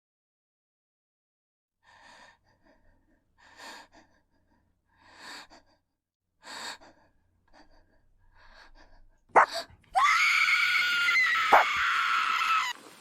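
Several short breathy gasps about a second and a half apart, then a sudden sharp cry and a loud, high-pitched scream held for nearly three seconds.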